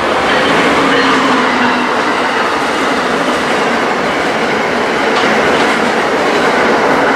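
Amtrak ACS-64 electric locomotive and its Amfleet coaches passing through a station at speed: a loud, steady rolling noise of steel wheels on the rails.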